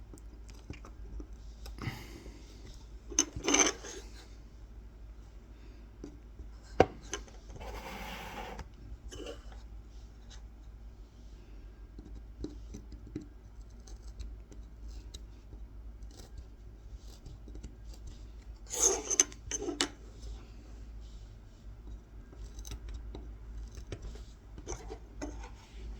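A kolrosing knife scratching and scoring fine lines into the wood of a honey dipper, in short intermittent strokes with small ticks, a sharp click about seven seconds in, and a couple of louder rustling bursts. A low steady hum lies underneath.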